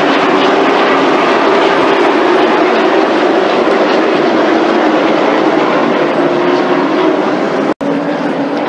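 A pack of late model stock car V8 engines running around an oval track, a loud steady drone with engine tones that waver slightly in pitch. The sound drops out for an instant near the end.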